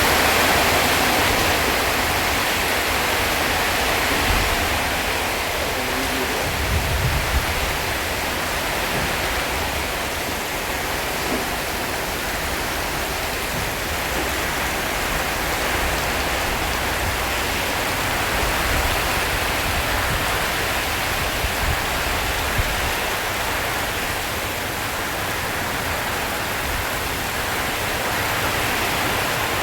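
Heavy rain drumming steadily on a tin roof, a dense even hiss with a few low thuds.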